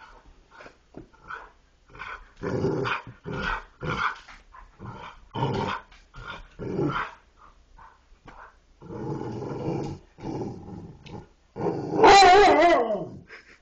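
Dogs "talking": a string of short growling, grumbling vocal sounds, then near the end a louder drawn-out call that wobbles up and down in pitch.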